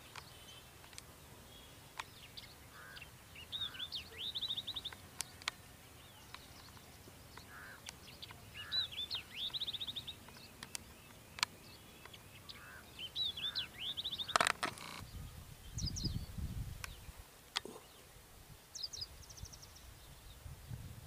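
A songbird singing a short repeated phrase of swooping high notes that ends in a fast trill, given about every four to five seconds, with softer lower calls between. A low rumble comes in about fifteen seconds in, and sharp clicks are scattered throughout.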